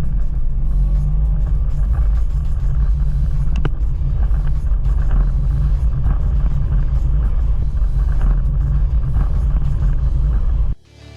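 Mazda CX-5's 2.0-litre SKYACTIV-G four-cylinder engine pulling under full-throttle acceleration, a loud, heavy low rumble. It cuts off suddenly near the end.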